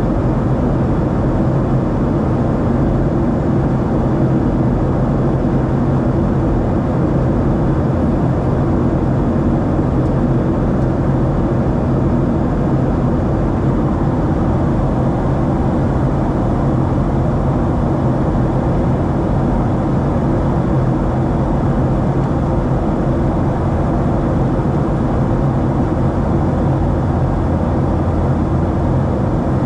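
Steady cabin noise of a Boeing 737-700 in flight: the constant hum of its CFM56-7B turbofan engines under a low rumble of airflow, unchanging throughout.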